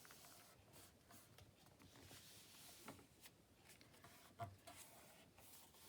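Near silence, with faint rustling of paper being handled and a few small taps on a craft table.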